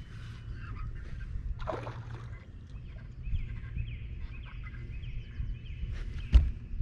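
Steady low rumble, with short repeated chirps and a brief rush of noise about two seconds in. A single sharp knock near the end is the loudest sound.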